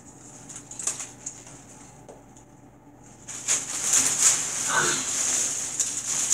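Potato chips heaped in a bathtub crackling and rustling as a child shifts around in them. A few faint crunches at first, then a dense, louder crunching from about three seconds in as he sits up in the chips.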